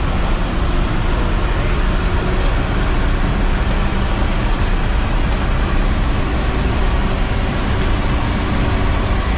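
Studio Tour tram in motion: a steady rumble of motor and wheels, with a thin high whine held throughout.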